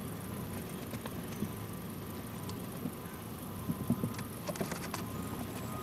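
Light scratching and small scattered clicks of a spot being wiped clean by hand, a little busier about two-thirds of the way in, over a low steady rumble.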